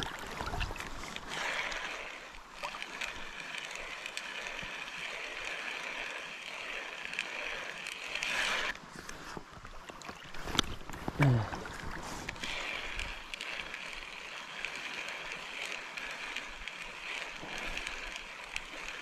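Steady rushing of river water flowing through a trout stream, with a single sharp click about halfway through.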